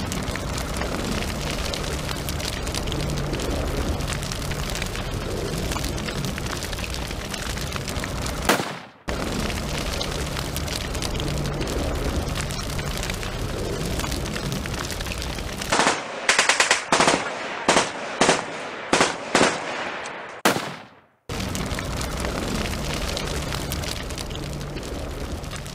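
Dubbed battle sound effects: continuous machine-gun fire and gunfire din that cuts out abruptly twice. Toward the end this becomes a run of separate sharp shots, about two or three a second.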